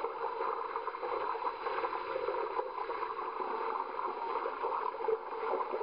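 Pool water sloshing and splashing, churned by people exercising in deep water, a steady uneven wash with no clear single splashes.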